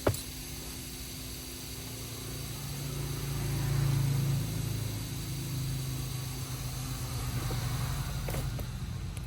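A sharp click, then a low steady machine hum that swells a few seconds in and eases back a little.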